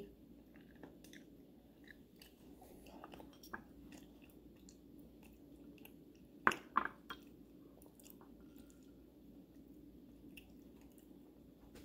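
A person quietly chewing chocolate chips. Two sharp knocks come about six and a half seconds in.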